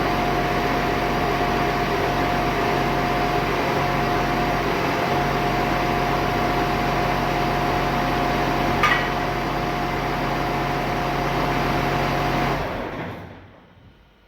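Case IH MX135 tractor's diesel engine running steadily with a constant whine, then shutting off and dying away near the end. A short squeak sounds about two-thirds of the way through.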